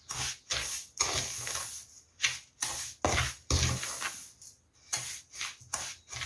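A wooden spoon stirring and scraping dry cassava starch and corn flour in a metal bowl. It makes a rhythmic rustling scrape, about two strokes a second.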